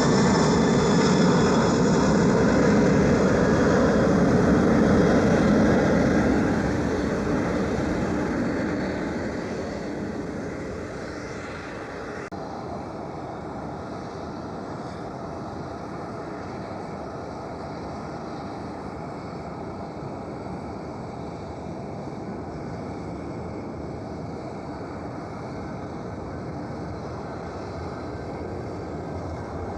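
Jet aircraft engines passing close, loud with a high whine at first, then fading away over several seconds to a steady, quieter background of engine noise.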